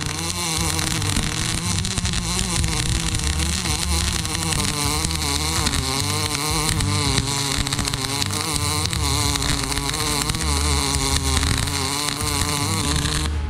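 Wire-feed welding arc running one long continuous bead on the steel plate of a front-end loader bucket: a steady hiss that stops just before the end.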